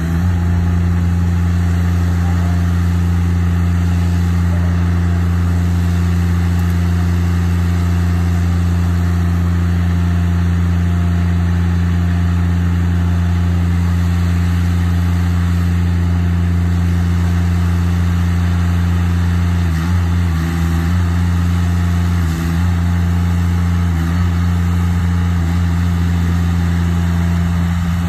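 Engine of an Altec tracked boom machine running steadily at idle, a loud, even hum that dips briefly twice about two-thirds of the way through.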